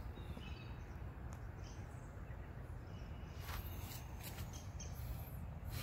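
A few footsteps crunching on dry leaf litter over a steady low rumble, with faint bird chirps.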